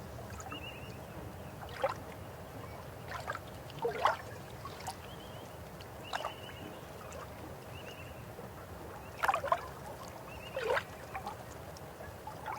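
River water flowing steadily, with about six louder gurgles and plops breaking through at irregular moments, and short high chirps now and then.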